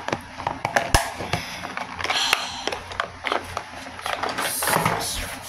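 Handling noise close to the microphone: scattered clicks and knocks from things being picked up and moved, with a sharp knock about a second in and rustling that is loudest near the end.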